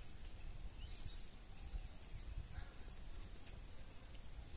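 Outdoor ambience: a steady high-pitched whine, a few faint short chirps, and a low rumble.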